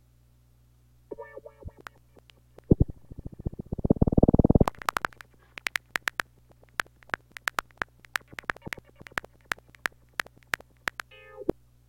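Electronic audio output of a sound-file player sent through a biquad filter whose cutoff is swept by a control oscillator. The oscillator's amplitude is mistakenly mapped to 8, which drives the filter badly out of range. Short pitched tones start about a second in, followed by a loud dense burst of rapid crackling clicks from about three to five seconds in, then sharp clicks a few per second.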